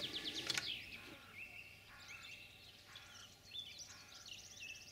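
Faint birdsong: repeated short chirps and trills throughout. A couple of light clicks come in the first half second.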